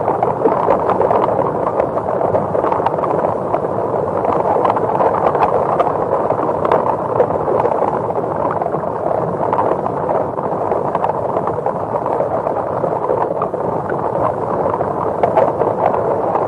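A Hedorah sound effect from the 1971 Showa Godzilla film: a long, loud, steady rough noise peppered with many small crackles.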